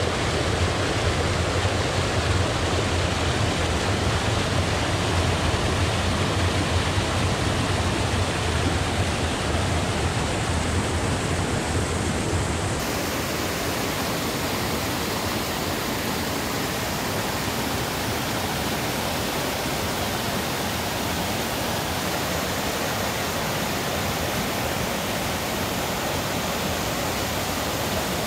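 Waterfall's steady rush of falling water. About thirteen seconds in it changes abruptly: the deep rumble drops out and the hiss turns brighter.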